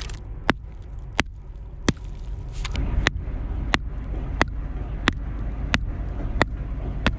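Steady hand-hammer blows chipping at a limestone boulder to free a calcite crystal, about eleven sharp cracks in an even rhythm of roughly three every two seconds.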